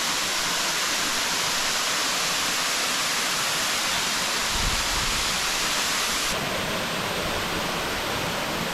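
Waterfall rushing: a steady, hissy wash of falling water, its tone shifting slightly about six seconds in.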